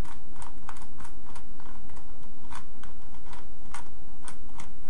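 2x2 Rubik's cube being turned fast in a speed solve: its plastic layers click with each turn, about three times a second.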